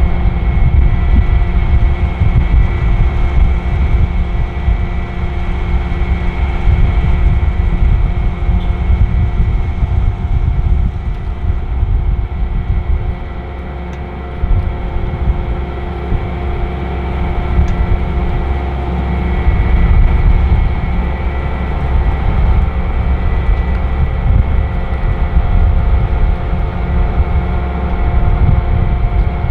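Challenger 560C combine running while harvesting corn: a steady low drone of engine and machinery with several steady whining tones over it, easing off briefly about halfway through.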